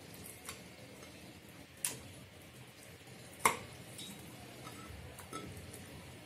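Raw chicken pieces being placed by hand into a stainless steel cooking pot, fairly quiet, with two sharp clinks against the metal, the louder one about halfway through.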